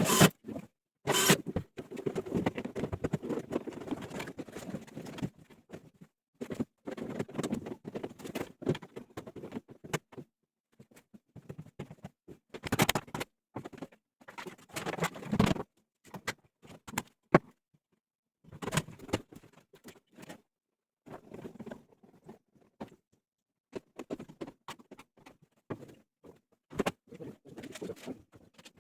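Irregular handling noise of work on a machine: scattered clicks, knocks and rustling, with a few louder knocks.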